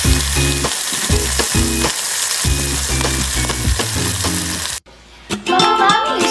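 Flour-dredged beef shanks sizzling and frying in hot olive oil in a pan, with occasional clicks of the tongs against the pan. The sizzle cuts off about five seconds in, and after a brief gap plucked-string music begins.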